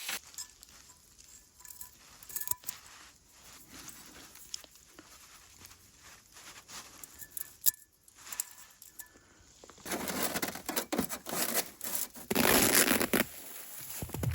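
Rustling and crinkling of camping gear being handled, with scattered small clicks, then a louder stretch of rasping rustle about ten seconds in.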